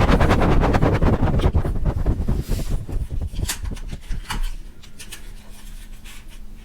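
Packaging handled close to the microphone during an unboxing: dense crinkling and rustling for the first couple of seconds, then sparser, quieter rustles and clicks.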